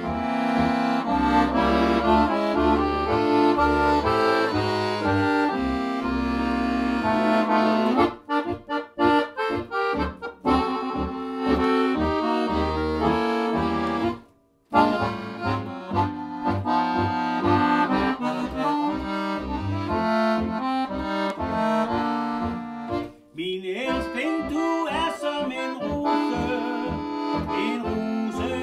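Piano accordion playing an instrumental passage: a melody on the right-hand keys over left-hand bass notes and chords. About eight seconds in it turns to short detached chords, and about halfway through it stops briefly before playing on.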